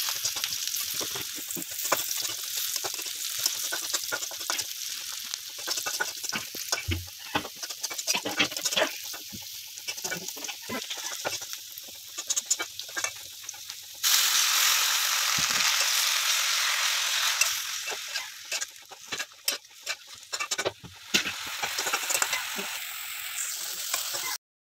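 Chopped garlic, onion, green chillies and taro leaves frying in oil in a wok, with a spatula scraping and tapping against the pan. About fourteen seconds in the sizzle turns suddenly louder for a few seconds. The sound cuts off just before the end.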